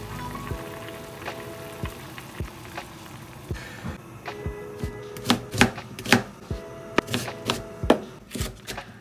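Knife chopping vegetables on a plastic cutting board, a run of sharp knocks starting about halfway through, over background music.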